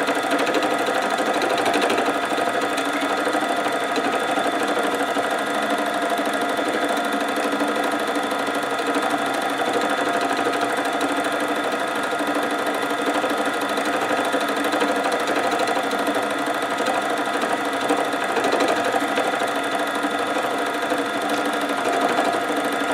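Simplicity 12-needle Deluxe felting machine running steadily, its needle bank punching wool into the backing as the piece is fed through. A steady mechanical hum with several fixed tones.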